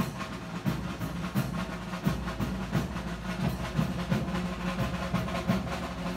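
Group of street drums beating a fast, steady rhythm, with strong strokes about three times a second, accompanying the dance of the giant puppets.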